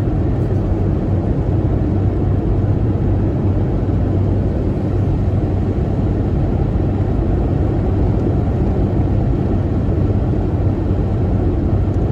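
Steady road and engine noise inside a moving car's cabin, with a low, even hum.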